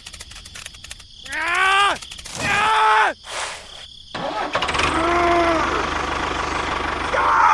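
Two short falling pitched sounds, then about halfway through a small engine starts and runs steadily with an even low rhythm.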